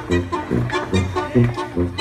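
Brass band dance music for a Mexican folk dance, with a steady oom-pah beat: low bass notes alternating with off-beat chords about three times a second.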